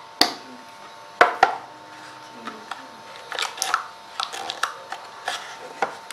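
A cardboard phone box and its white insert tray being handled on a tiled floor. There are three sharp knocks within the first second and a half, then a run of lighter clicks and rustles as the tray's cable compartment is worked open.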